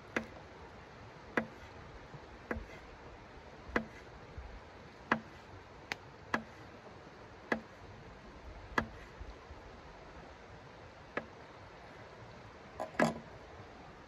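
A series of sharp, short knocks, roughly one every second and a bit, over a faint steady hiss; the pace pauses briefly, and the loudest knock, a doubled one, comes near the end.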